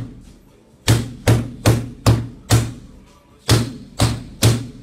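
A large metal Zippo-style lighter smashed repeatedly onto the screen of an iPhone 6 Plus fitted with a bulletproof protective film: sharp hard knocks, five in quick succession, then a pause and three more near the end, each ringing briefly.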